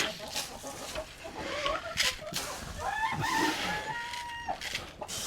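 Chickens in a coop, one giving a single long, drawn-out call starting about three seconds in, with a few sharp knocks among the birds' rustling.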